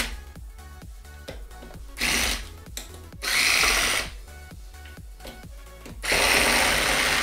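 Corded electric screwdriver running in three short bursts as it backs screws out of a hoverboard's plastic bottom cover, the last burst the longest. Background music with a steady beat underneath.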